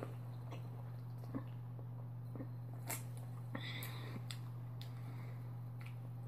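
A person sipping and swallowing an energy drink from an aluminium can: a few faint, short mouth and can-handling sounds over a steady low hum.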